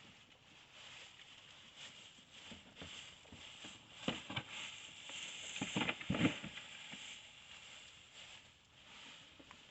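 Piglets eating popcorn: crunching and rustling, with a few short knocks about four and about six seconds in.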